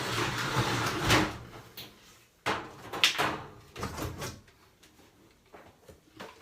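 A run of knocks, bumps and scrapes from equipment being handled, with a rustling, noisy stretch in the first second and separate knocks about 1, 2.5, 3 and 4 seconds in.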